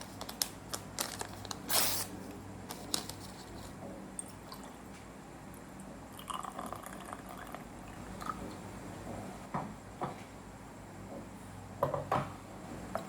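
Scattered light clicks and knocks with wet, liquid sounds, over a steady low room hum.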